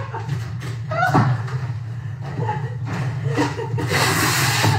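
Black padded plastic mailers rustling and crinkling, with short slaps as they are handled on a table; a louder burst of crinkling comes about four seconds in, over a steady low hum and a few faint voices.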